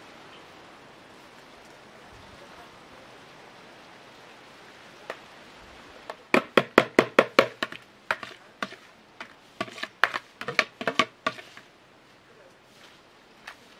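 A metal slotted spoon knocking against the bowl and the steel pot as grated carrots are scraped out into the pot. About six seconds in comes a quick run of sharp knocks, about six a second, then slower irregular knocks for a few seconds, over a low steady hiss.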